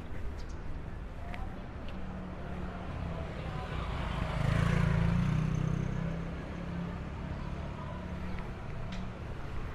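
Street traffic noise. A motor vehicle's engine passes close, growing louder about four seconds in and fading again after about six seconds.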